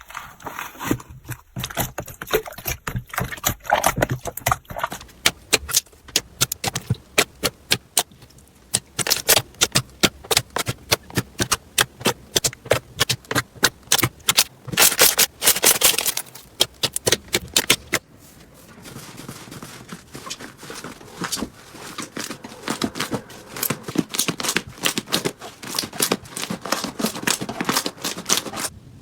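Slime being squished, poked and pressed by hand, making quick runs of sharp clicks and pops as air pockets burst. The texture changes a few times, about five, eight and eighteen seconds in.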